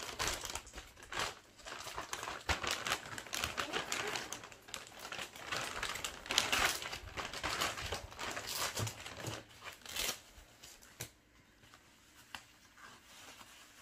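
Clear plastic packaging bag crinkling and rustling as a part is worked out of it by hand. The rustling thins out to a few scattered crinkles about ten seconds in.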